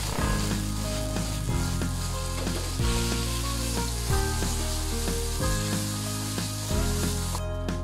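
Oil sizzling in a hot wok as diced potato and carrot are sautéed and stirred with a metal ladle, with occasional scrapes and taps of the ladle on the pan. Background music with steady bass notes plays underneath.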